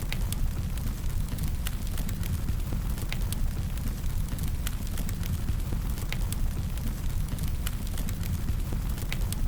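Fire sound effect: a steady low rumble of burning with irregular crackles and pops, several a second.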